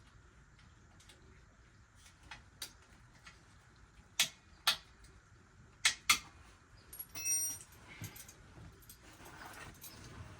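Sharp metallic clicks and clinks of hand tools and metal parts being handled during motorcycle engine disassembly: a few light taps, then four louder clinks between about four and six seconds in, followed by a brief high-pitched ringing squeak.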